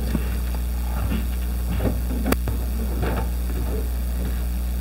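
Steady low electrical hum from the church's sound system, with a few faint murmurs in the room and one sharp click a little past two seconds in.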